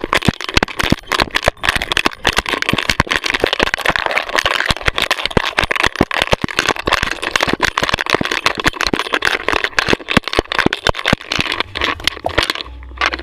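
Rapid, continuous knocking and rattling of a dog-mounted GoPro jostled as the dog runs, with rustling; the clatter stops abruptly shortly before the end.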